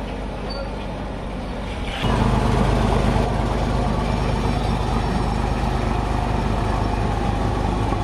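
Diesel engine of a large road roller running steadily, suddenly much louder about two seconds in.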